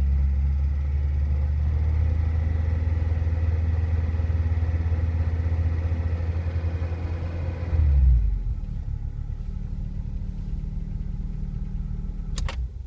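Ford Orion engine running steadily. About eight seconds in, the note drops to a quieter, lower run, and a single sharp click comes near the end.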